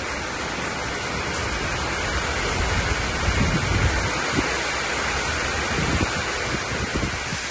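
Heavy thunderstorm downpour: a steady roar of rain with gusty wind that swells strongest about three to four seconds in and again near six seconds.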